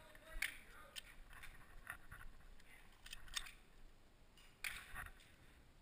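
Faint, scattered sharp clicks and taps, about eight spread unevenly, with a small cluster near the end.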